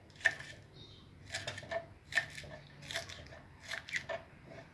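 Kitchen knife chopping spring onion on a wooden cutting board: a series of short sharp cuts, about two a second, unevenly spaced.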